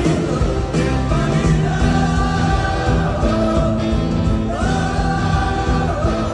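Music with singing: sung notes, each held about a second, stepping in pitch over a full band accompaniment.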